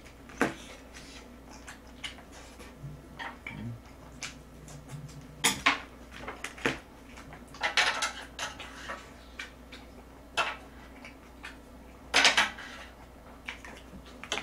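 Chopsticks and a spoon clinking and tapping against plates, bowls and a table-top grill plate during a meal, in scattered separate clicks with a denser cluster of clatter midway, alongside chewing.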